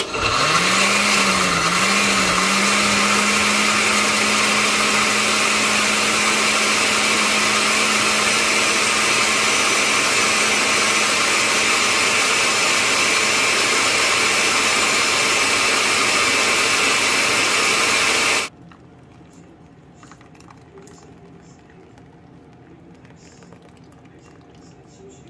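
Countertop blender with a glass jar blending whole tomatillos, green chiles, onion and tomato into salsa. The motor starts loud, speeds up with two brief dips in pitch in the first couple of seconds while the whole vegetables are chopped, then runs steadily until it switches off abruptly about 18 seconds in.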